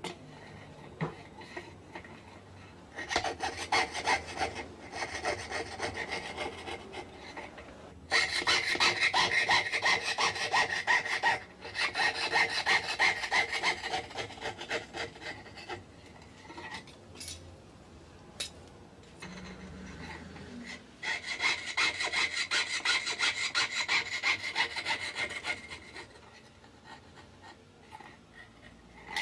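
Jeweller's hand fretsaw with a fine blade cutting through a thin silver plate in several runs of rapid back-and-forth strokes, with short pauses between runs. The saw is cutting out an opening for a metal inlay.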